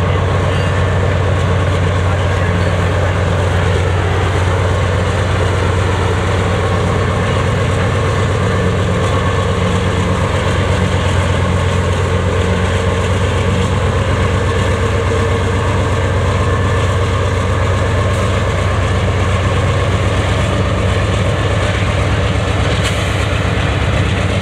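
Two GE AC4400CW diesel locomotives passing as rear distributed-power units on a freight train. Their engines drone steadily in a loud, low hum, mixed with wheel and rail noise.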